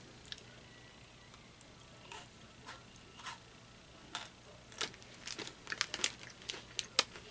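Pocky snack packaging crinkling in the hands. A few scattered soft clicks come first, then a denser run of sharp crackles in the second half.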